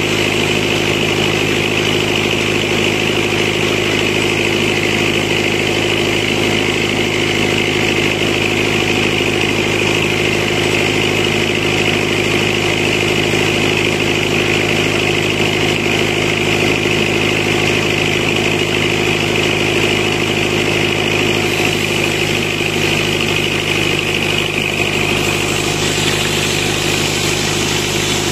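Tractor engine running steadily at working speed, driving a mobile sawmill's saw.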